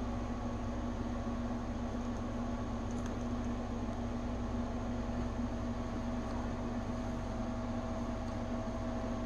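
Steady background hum with a constant low tone and a fainter higher one, unchanging throughout; no clear handling knocks stand out.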